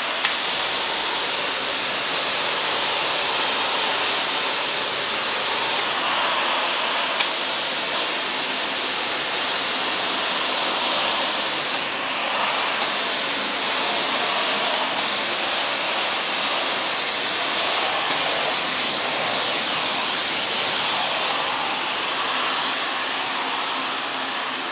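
Tile and grout cleaning wand spraying water onto floor tile under vacuum extraction: a loud, steady rushing hiss. The hiss thins briefly several times as the wand's spray eases off and comes back.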